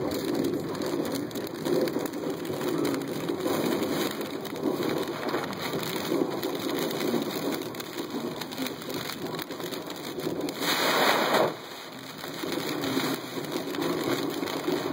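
Storm-driven rain hitting a car's windows and body, heard from inside the car: a steady rushing buffet of wind with a dense patter of drop ticks. About eleven seconds in, a brighter hissing gust swells, then the noise drops off for about a second before building again.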